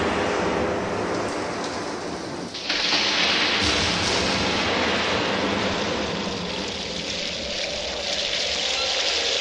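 Steady heavy rain that suddenly turns louder and hissier a little under three seconds in, then pours on evenly.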